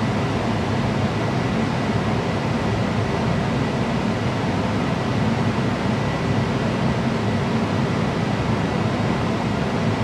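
New Coleman TG9S gas furnace running steadily with its draft inducer fan spinning: an even rush of air with a low hum underneath and a faint steady high tone.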